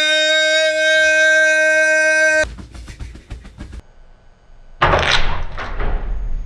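A man's long yell held on one steady pitch for a couple of seconds, cut off abruptly. After a quieter gap with a few clicks, a loud noisy clatter starts near the end.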